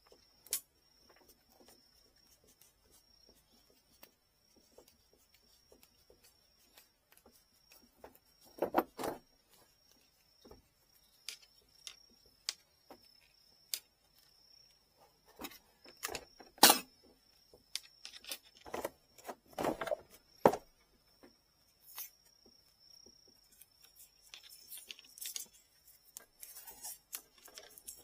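Small clicks, taps and knocks of tools and rod parts being handled at a workbench, with louder clusters about nine seconds in and again around sixteen to twenty seconds, over a faint steady high-pitched whine.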